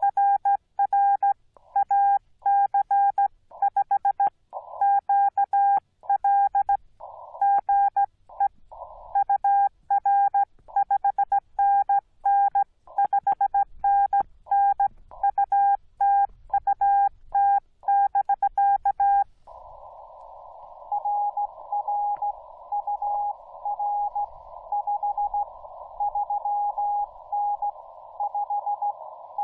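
Morse code from a Yaesu FT-891 transceiver. For the first nineteen seconds or so the operator keys out a loud, steady-pitched sidetone. Then the receiver's narrow-filtered hiss comes up, carrying a fainter incoming Morse signal at the same pitch.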